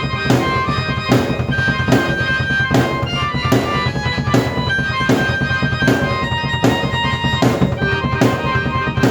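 Drum kit and keyboard played together: sustained organ-like keyboard notes held over a steady drum beat, with a strong hit about every 0.8 seconds.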